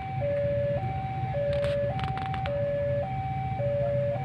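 Electronic two-tone warning alarm, as at a railway level crossing, sounding steadily with a high and a low tone alternating about every half second, signalling an approaching train. A steady low rumble runs underneath, and a few short clicks come about halfway through.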